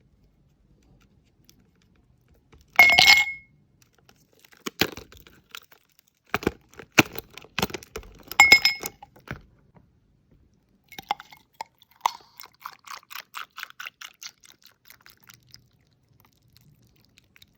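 Reusable plastic ice cubes clinking and clattering together: a loud clatter about three seconds in, scattered sharp clicks, then a quick, even rattle near the end.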